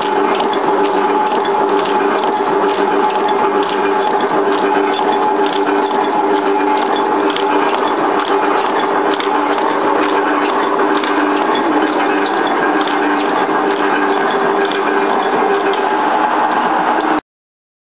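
Automatic chain-link bending machine running, its bending levers and rollers clacking in a regular rhythm, a few strokes a second, over a steady hum as it bends and closes small round-steel chain links. The sound cuts off suddenly near the end.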